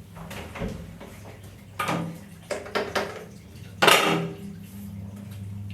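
Small hard objects being handled at a bathroom sink, knocking and clinking against ceramic and glass in a series of short sharp clatters, the loudest about four seconds in, over a low steady hum.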